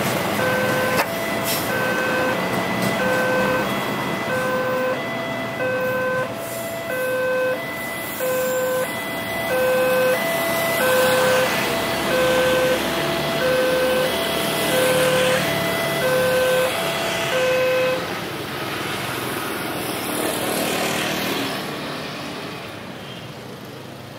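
Electronic railway level-crossing warning bell sounding a little over once a second over the noise of a passenger train running past. The bell stops about eighteen seconds in, and the train noise fades away near the end.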